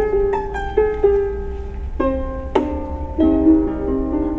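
A plucked string instrument played solo: single notes ring out and fade one after another in a slow melody, with two sharply struck notes about halfway through.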